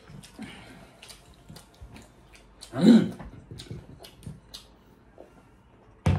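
Close-up eating sounds of people eating rice and pork curry by hand: soft smacking, chewing and small clicks of fingers on the banana leaf. About halfway through comes a short, loud vocal sound, and there is a sharp click just before the end.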